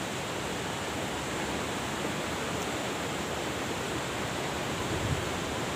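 Steady rushing noise of a river in flood.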